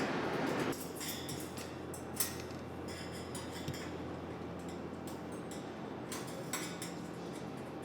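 Light metallic clicks and clinks of cut metal parts being handled during deburring, scattered irregularly over a steady low machine hum.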